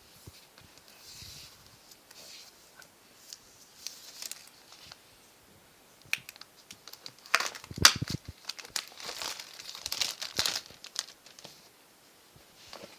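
Packaging being crinkled and torn open as a smartphone box is unpacked, with scattered clicks and handling knocks; the rustling is light at first and gets busiest and loudest about seven to ten seconds in, with one sharp knock near eight seconds.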